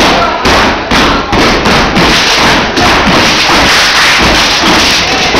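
Step team stepping: loud, rapid stomps of shoes on a hard floor with hand claps and body slaps, several strikes a second in an irregular rhythm.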